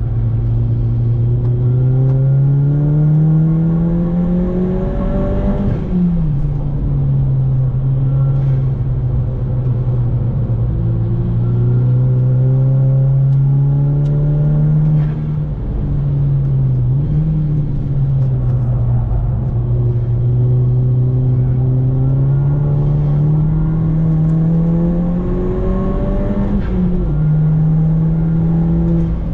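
Volkswagen Golf Mk5 GTI's turbocharged 2.0-litre four-cylinder engine heard from inside the cabin while driven hard on track. The engine note climbs steadily under acceleration, falls sharply about six seconds in, again around the middle and once more near the end, and climbs again in between, over a steady low road and tyre rumble.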